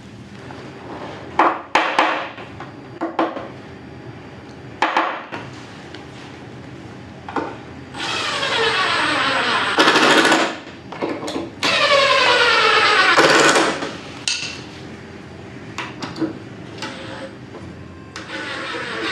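Cordless impact driver driving screws into a wooden roof frame: two whirring runs of about two seconds each, one a little before halfway and one just after, and a third starting near the end. Before the first run, a few sharp knocks of timber and tools being handled.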